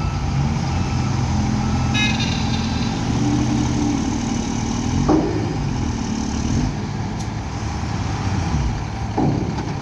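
Heavy diesel construction machinery running, an excavator and dump trucks, with the engine pitch rising for a couple of seconds before dropping back. A brief high toot sounds about two seconds in.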